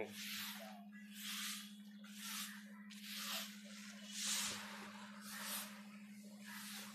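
Long-handled stick broom sweeping a paved street, one scratchy swish about every second. A steady low hum sits underneath.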